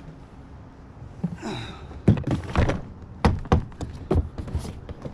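A scrape about a second in, then a series of irregular knocks and thunks of hard objects being handled, the loudest two about two and three seconds in.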